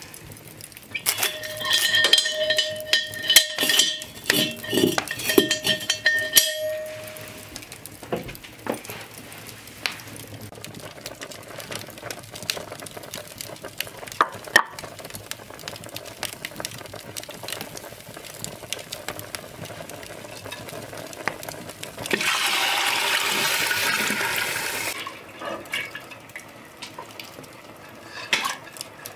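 Cast iron pot clattering and ringing as it is hung on an iron fireplace crane for the first several seconds, then a quieter stretch of small clicks. About 22 seconds in comes a steady pour of liquid into the pot lasting about three seconds.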